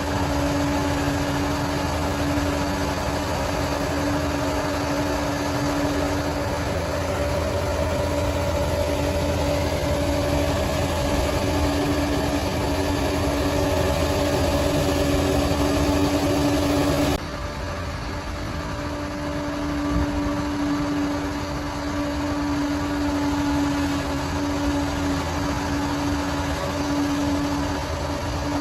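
Bulldozer's diesel engine running steadily with a constant hum, no speech. The sound drops abruptly about two-thirds of the way through, then carries on much the same.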